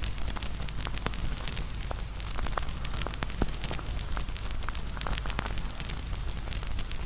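Fire crackling: irregular sharp pops and snaps, several a second, over a steady low rumble and hiss.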